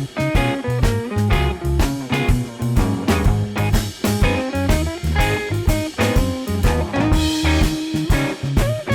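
Background music: an upbeat guitar-led instrumental with drums and a steady beat.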